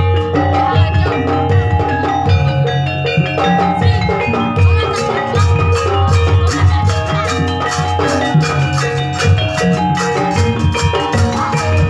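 Live Javanese gamelan-style dance music: tuned metal percussion playing a busy repeating melody over steady drum strokes. About four seconds in, quick, even high metallic beats join in.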